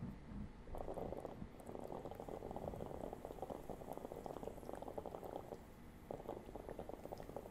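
Water bubbling rapidly inside a Cloudious9 water-filtered vaporizer as it is inhaled through, in a long draw that starts about a second in. It breaks off briefly about five and a half seconds in, then resumes with a second draw.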